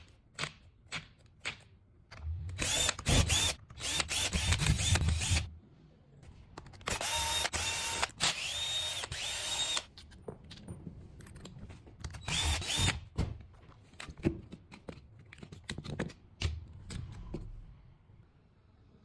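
Makita DTW1001Z cordless impact wrench run in three bursts of a few seconds each, motor whining with a steady pitch. Clicks and knocks of handling come before, between and after the runs.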